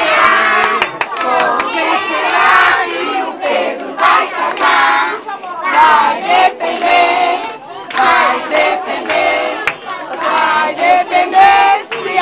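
A group of guests, adults and children, singing and shouting a birthday song together in loud phrases with short breaks, with hand clapping along.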